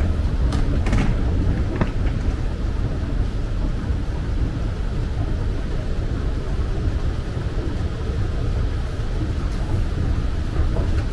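Steady low rumble of a large airport terminal hall, with the running escalator part of it. A few light knocks come about one and two seconds in.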